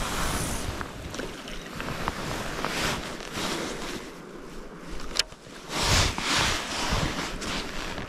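Gusting wind on the microphone over the wash of water, swelling and fading, with one sharp click about five seconds in.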